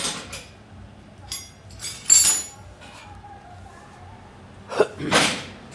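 Small metal motorcycle parts clinking and knocking as they are handled and set down: a few separate sharp clinks, the loudest about two seconds in with a brief metallic ring, and two more near the end.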